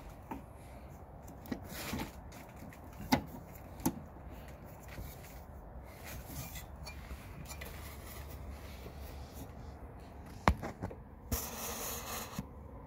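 A Zinsco-style 100-amp double-pole main breaker being pushed and worked by hand onto the panel's bus bars: a few sharp plastic-and-metal clicks and knocks spread apart, and a rough rubbing scrape for about a second near the end, as it is forced to seat.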